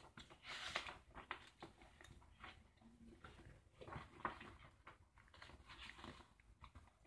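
Faint, irregular rustling and light handling noises of paper and a journal being moved about on a desk.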